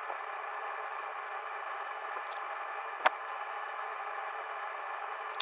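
Steady hiss, with one sharp click about three seconds in.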